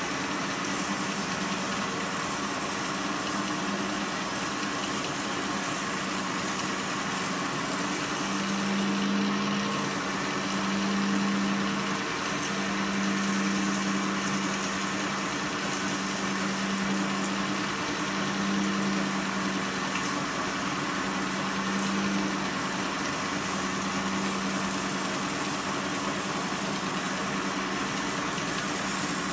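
Bench grinder motor running steadily, spinning an ATV axle in a makeshift lathe, with a steady hum. Over the hum comes a continuous scraping of a hand-held tool cutting metal off the turning axle.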